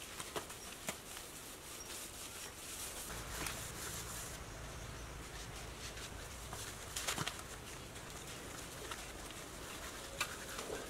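Scattered knocks and scrapes of a bucket and hands working wet cement slurry on a concrete pool floor, with one sharper knock about seven seconds in, over a steady low background.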